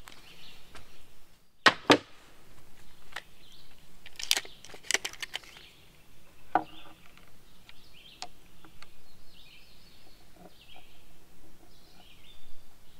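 Sharp clicks and taps of metal cabinet hinges and a tape measure being handled on pine cupboard doors. The two loudest clicks come close together about two seconds in.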